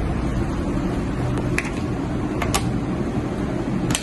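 Hair dryer running with a steady whir of motor and fan, showing that the rewired plug works. A few faint clicks are heard over it.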